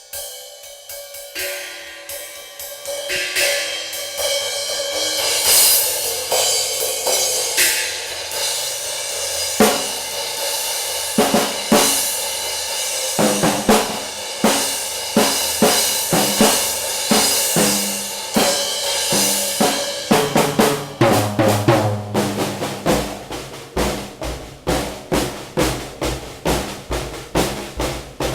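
Drum kit played solo: cymbals washing and swelling through the first part, then a steady beat of snare and bass drum hits at about two strokes a second from about twenty seconds in.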